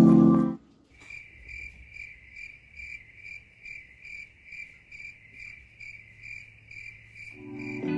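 Cricket chirping in an even rhythm, about two to three chirps a second, after a music chord cuts off about half a second in; music swells back in near the end.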